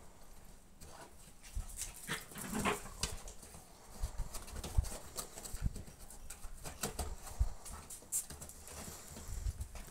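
Puppies playing in and around a small wooden doghouse: irregular knocks, scrapes and paw scuffles on the wood and paving, with an occasional small dog sound.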